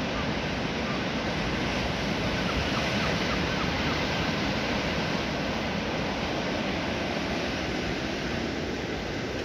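Ocean surf breaking and washing over a rocky shore, a steady, even rush of water.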